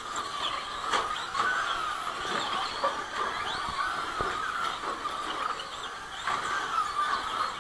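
Several Traxxas Slash short-course RC trucks racing, their electric motors and gears whining and rising and falling in pitch with the throttle. A few sharp knocks come from the trucks landing and hitting the track.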